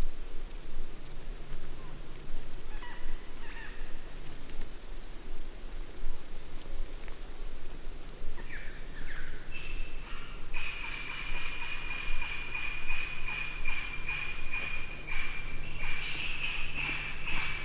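Forest insect chorus: a steady, high, pulsing chirring throughout. A second, lower trilling call joins about ten seconds in.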